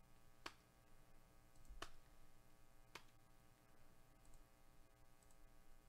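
Near silence with three faint, sharp clicks about a second apart.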